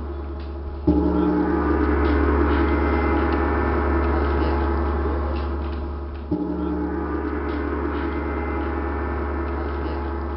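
Gong struck twice, about five and a half seconds apart, each stroke ringing on over a steady low drone.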